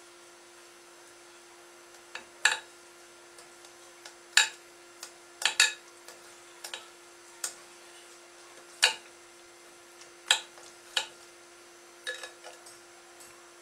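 Metal knife and fork clinking and scraping against a glass baking dish as a baked meat roll is cut: about a dozen sharp, irregular clinks.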